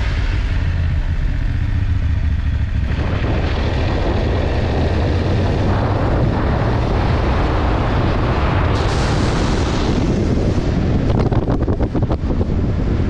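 BMW F 750 GS motorcycle running on the road, its parallel-twin engine a steady low drone under rushing wind noise on the microphone. The wind buffets the microphone unevenly in the last couple of seconds.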